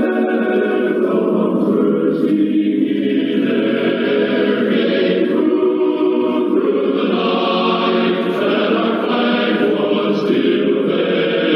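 A choir singing the national anthem, in held notes that change every second or so.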